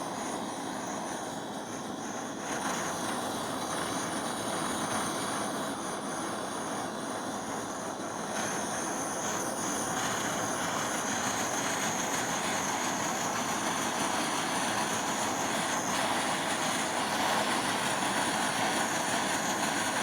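Gas soldering torch burning with a steady hiss as it heats a silver piece to flow the solder; a faint high whine joins about eight seconds in.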